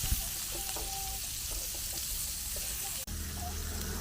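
Food sizzling as it fries, a steady hiss with a brief break about three seconds in.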